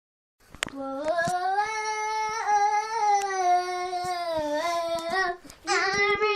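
A child's voice holding one long sung note for nearly five seconds, wavering slightly in pitch, then breaking off and starting a second note near the end.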